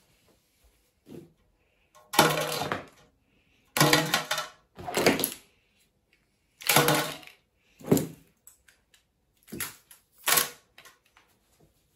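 Selfie sticks, a ring light with its cable and charger, and a tripod dropped one after another into a metal mesh wastebasket, clattering against the wire mesh and each other in about seven separate crashes.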